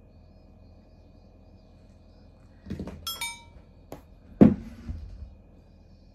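A few dull thumps and a sharp click of movement on the sofa, the loudest thump about four and a half seconds in, with a quick descending run of bright chiming tones just after three seconds.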